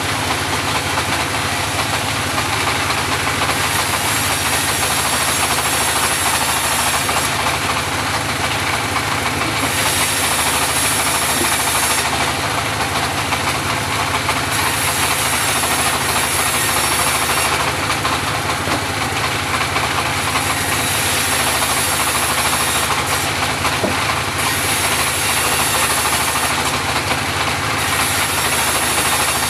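Engine-driven homemade portable bandsaw sawmill running steadily. A high hiss swells and fades every few seconds over the engine drone.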